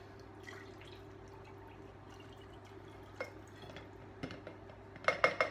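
Low steady hum, then a quick run of four or five sharp clinks of kitchenware near the end.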